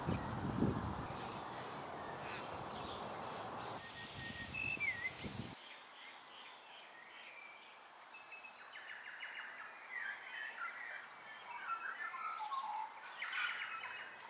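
Birds chirping and warbling, a busy mix of short calls, over a steady rushing background noise that stops about five and a half seconds in.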